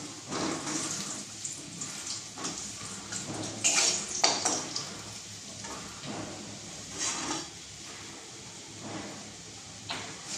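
Wooden spatula stirring and scraping food around a metal wok, in irregular strokes, the loudest couple of scrapes about four seconds in.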